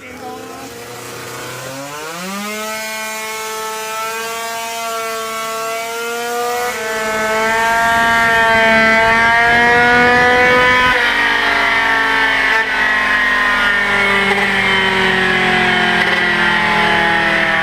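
94cc Polini Big Evo two-stroke scooter engine run on a dyno: it revs up sharply about two seconds in, then climbs slowly under load and holds at high revs, getting louder toward the middle.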